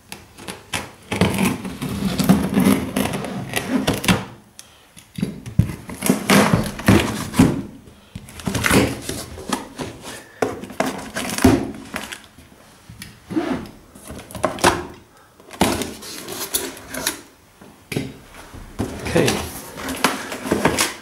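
Plastic shrink-wrap being torn off a cardboard box, then the box's cardboard flaps and packaging being pulled open and handled: irregular loud crackling and rustling with occasional knocks.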